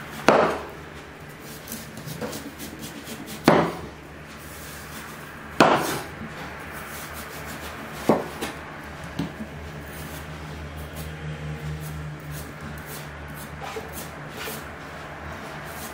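Knife cutting the rind off a whole watermelon on a wooden cutting board: the blade scrapes down through the rind and knocks sharply on the board. Four loud knocks come in the first six seconds, then lighter ticks and scrapes.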